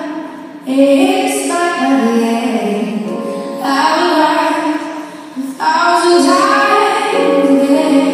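Recorded song with a female lead vocal, the dance routine's music, with short breaks between sung phrases just after the start and about five and a half seconds in.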